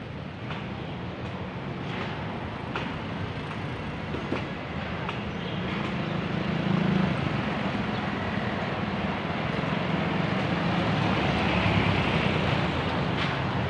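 Street traffic: a motor vehicle's engine rumble grows louder through the middle and later part, over steady road noise, with footsteps at a walking pace.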